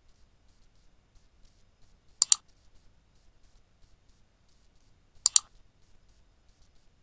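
Agouti cracking dry corn kernels with its teeth: two sharp double clicks, about three seconds apart.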